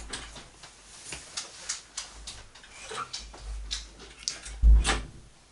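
Scattered light clicks and taps from people and dogs moving about a small room, with a dull thump about four and a half seconds in.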